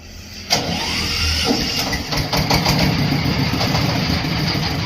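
30 hp Dong Feng diesel engine being electric-started: it catches suddenly about half a second in, with a brief rising whine, then runs steadily.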